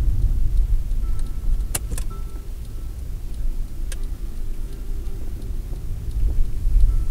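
Car engine and tyre rumble heard from inside the cabin on a wet road, easing as the car slows and swelling again near the end. A few sharp clicks come about two seconds in and again at four seconds.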